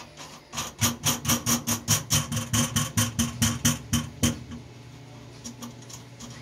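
Ratchet wrench clicking quickly and evenly, about five or six clicks a second, while nuts are run down onto bolts through the truck's firewall; it stops a little after four seconds in.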